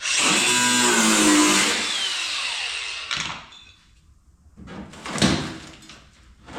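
DeWalt power cutter running as it cuts through the truck bed's rusted sheet steel, its motor pitch shifting under load, then stopping about three seconds in. A few knocks and rattles of metal follow near the end.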